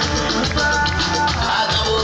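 Loud music with a steady beat and a repeating bass line.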